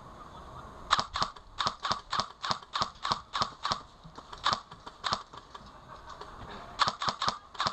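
Airsoft rifle fired as single shots: a run of sharp clicks at about three a second, a pause, then a quick cluster of four shots near the end.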